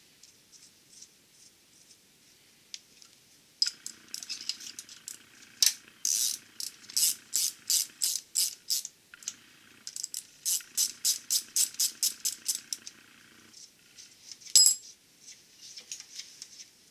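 Ratchet wrench clicking in quick runs as a thread chaser is worked in and out of a 3/8-16 tapped bolt hole in the engine block, cleaning the threads. The clicking starts about four seconds in and stops a few seconds before the end, followed by one sharp clack.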